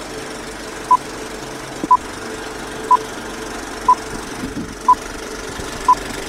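Radio time-signal pips: six short beeps of the same pitch, one a second, over a steady static-like hiss.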